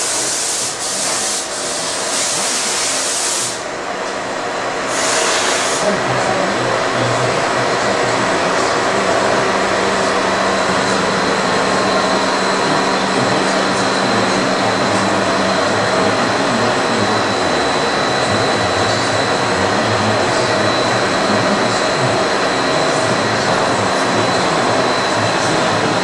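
Loud, steady machinery running noise with a whir and a faint high tone. A hiss of air is heard over the first few seconds.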